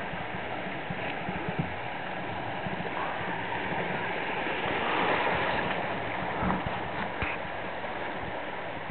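Shallow river riffle: water rushing and gurgling steadily over stones, swelling a little around the middle. A few light knocks sound in the second half.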